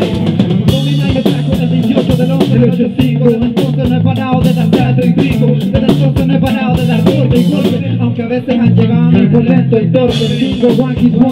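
Rock band playing: electric guitar, bass guitar and drum kit in a steady groove, the bass repeating a short line under regular drum hits.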